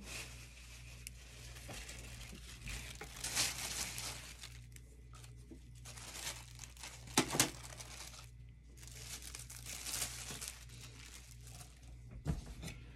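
A sheet of Press'n Seal plastic wrap pulled from its roll, torn off and crinkled as it is spread flat, with a few sharper crackles, the loudest about seven seconds in.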